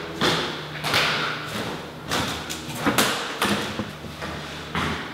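Footsteps on a hardwood floor in an empty room: a run of uneven thuds about twice a second, over a faint steady low hum.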